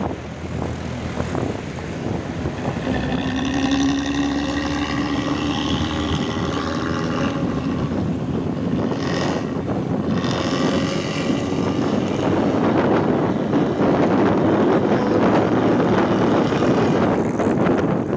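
Diesel bus engine running through a loud modified 'ngorok' (snoring) exhaust. Its note rises slightly a few seconds in, and it grows louder and rougher in the second half.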